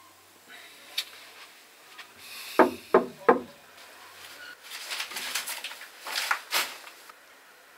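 Three quick knocks on a door, then a few seconds of rustling and shuffling.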